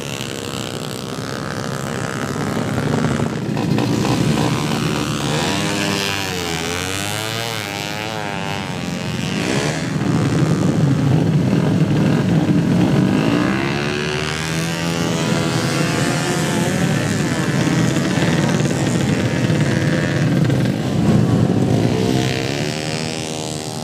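Drag-racing motorcycle engines revving hard, their pitch rising and falling again and again.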